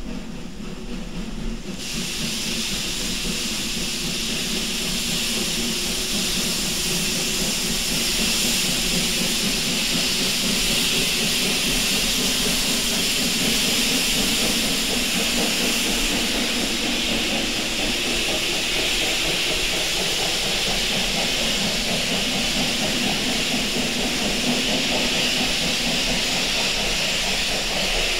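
Steam locomotive letting off steam: a loud, steady hiss starts abruptly about two seconds in and keeps on over a lower rumble.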